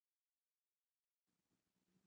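Near silence: the sound track is dead silent at first, with a very faint low sound coming in a little past halfway.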